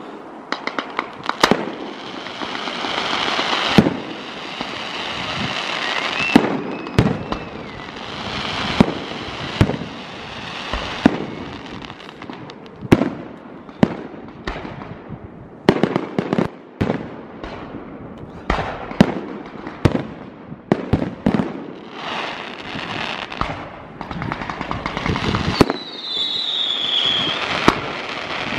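Professional fireworks display: firework cakes and aerial shells firing in a fast, irregular run of sharp bangs, with hiss and crackle filling the gaps between them.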